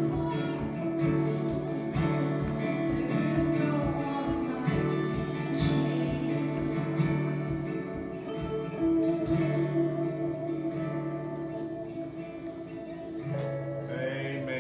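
Live church worship band playing a gospel song: guitar over sustained chords and a steady beat, dying down near the end.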